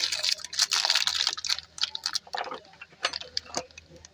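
Irregular metallic clicks, taps and scrapes as worn disc brake pads and their fittings are worked out of a motorcycle's rear brake caliper by hand.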